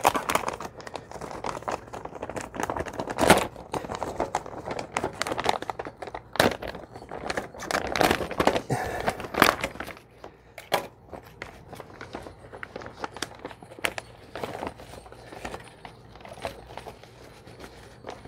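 Clear plastic vacuum-sealed bag crinkling and tearing as it is pulled open by hand. Dense crackling for about the first ten seconds, then sparser rustles.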